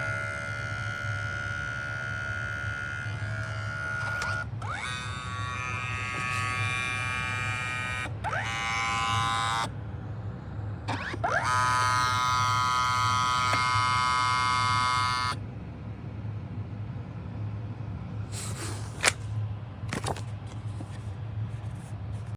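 Kodak Mini Shot 3 Retro's print mechanism whirring: a small motor runs in several spells of steady whine, each starting with a short rising pitch. The whine stops about 15 seconds in and is followed by a few sharp clicks.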